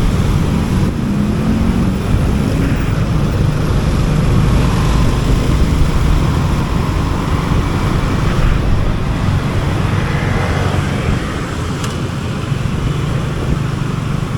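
Motorcycle engine running under way, with steady road and traffic noise in city traffic.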